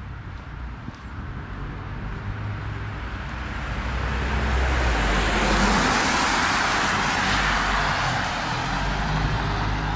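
A road vehicle passing close by, its tyre rush swelling over a few seconds to a peak past the middle and easing a little near the end, over a steady low traffic rumble.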